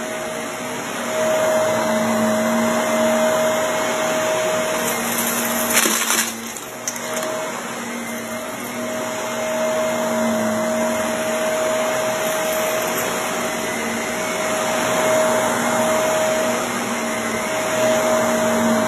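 Shark Navigator upright vacuum cleaner running steadily over carpet with a constant motor hum. About six seconds in there is a short high hiss and the sound briefly dips.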